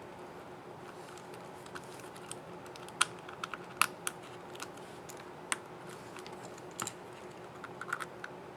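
Irregular sharp plastic clicks from an HP ZBook Firefly 14 G7 laptop keycap and its scissor mechanism as the key is fitted and pressed on the keyboard. The clicks bunch together about three to four seconds in and again near the end, over a faint steady hum.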